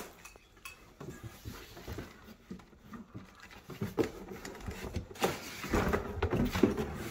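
Handling noise from unboxing a trim saw: cardboard rustling and scraping, with knocks and clatter from the saw's plastic tray and lid as it is lifted out of the box. The handling grows busier and louder in the second half.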